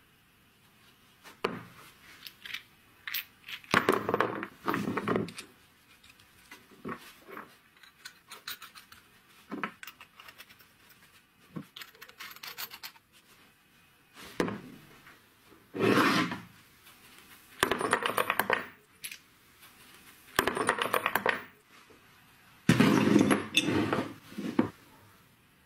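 Small brass pipe fittings being handled in gloved hands: metal clinks, with scraping and rubbing as threaded parts are turned against each other and set down on a wooden bench. It comes in a series of short bursts with single clicks between.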